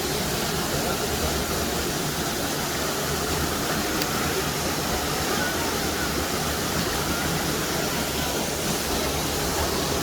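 Steady rushing of a waterfall pouring into a pond, a constant even roar of falling water.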